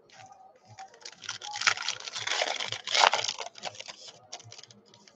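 A trading-card pack's foil wrapper being torn open and crumpled in the hands: dense crinkling and crackling that builds about a second in, is loudest in the middle, and thins to scattered crackles near the end.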